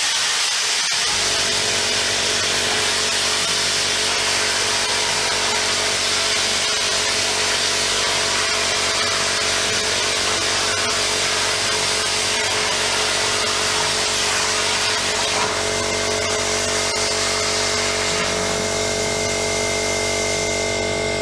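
Homemade CNC plasma cutter cutting: a loud, steady hiss with a low hum under it. A faint high tone joins about fifteen seconds in.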